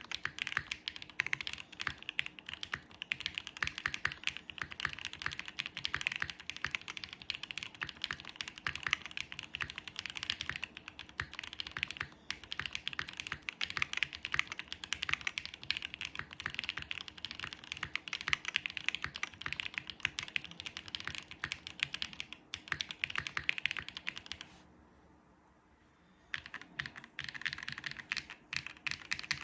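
Continuous fast typing on a custom Mode Sonnet mechanical keyboard with lubed Zaku linear switches in a carbon fibre plate with plate foam, GMK keycaps: rapid keystroke clacks with a brief pause a little before the end.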